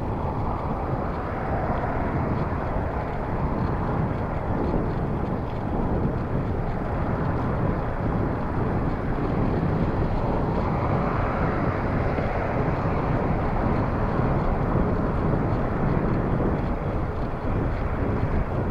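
Wind rushing over the microphone of a bicycle handlebar camera while riding, with road traffic passing alongside; the rushing swells near the start and again about ten seconds in.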